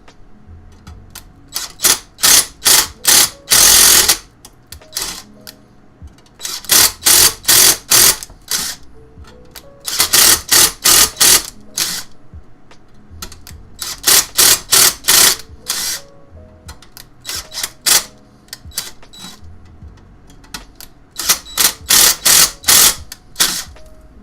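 Hand tool rasping on the metal of a PC case in quick back-and-forth strokes, coming in runs of about five to eight strokes at two or three a second with short pauses between runs.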